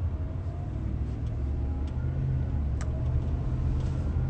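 Steady low rumble of a vehicle, with a single faint click about three seconds in.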